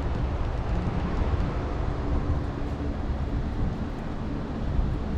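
Steady outdoor background noise: a continuous low rumble with hiss over it and a faint steady hum, with no distinct events.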